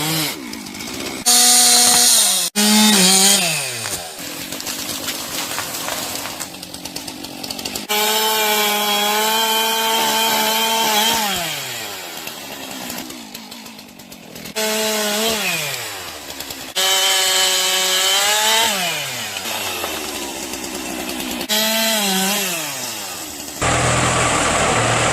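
Chainsaw revving and cutting into tree roots in repeated passes; each time its engine pitch climbs and then sags as the chain bites into the wood. Near the end a steadier, deeper engine sound takes over.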